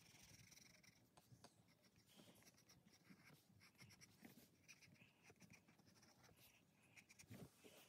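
Graphite pencil scratching faintly on paper in short sketching and shading strokes, with a louder soft rustle near the end.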